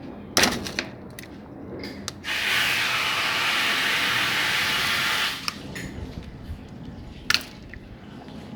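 A steady hissing spray lasting about three seconds, with a sharp knock shortly before it and another a couple of seconds after.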